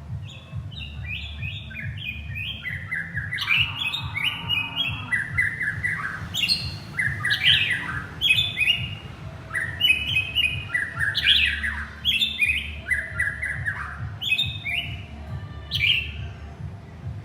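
White-rumped shama singing: phrase after phrase of quick notes stepping down in pitch, broken by a few sharp upward whistles, over a steady low hum.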